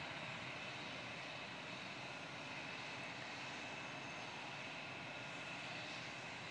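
Medical helicopter running on the ground with its rotor turning, a steady engine whine over rotor noise.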